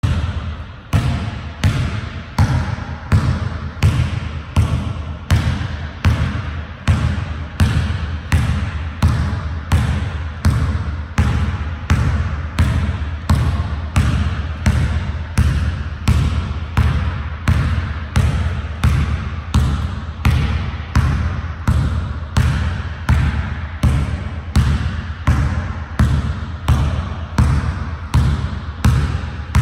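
Basketball dribbled hard on a hardwood gym floor, each bounce a deep thud, in a steady rhythm of a little under two bounces a second.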